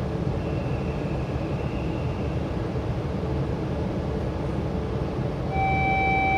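Interior running sound of an E5-series Shinkansen car: a steady rumble. Near the end, a set of steady high tones comes in: the whine of the Toshiba (as the uploader believes) IGBT VVVF traction inverter.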